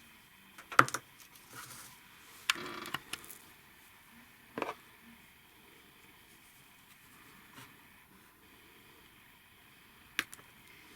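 A few scattered clicks and knocks of small parts being handled, with a short rattle about two and a half seconds in; no steady running rhythm.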